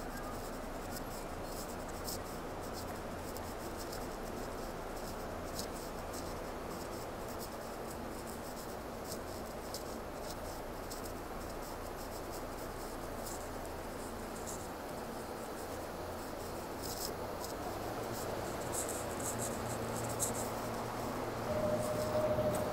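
Ambience of a quiet railway station platform: a steady, even hiss with faint scattered clicks. In the last few seconds, alongside a stopped train, a low hum grows louder and a short steady tone sounds near the end.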